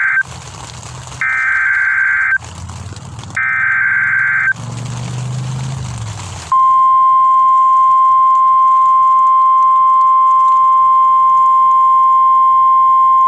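NOAA Weather Radio emergency alert from a weather radio's speaker: short harsh buzzing data bursts of the digital alert header, two of them about two seconds apart after the tail of a first, then a steady high alarm tone that starts about halfway through and holds. The sequence signals the start of a new urgent weather message, here a severe thunderstorm warning.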